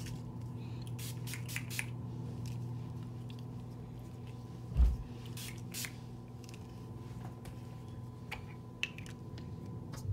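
Electric garage door opener running with a steady, loud motor hum that cuts off at the very end. A single heavy thump about halfway through, and a few light clicks.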